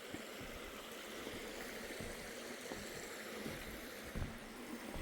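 Creek water running faintly and steadily, with a few soft knocks, one a little louder about four seconds in.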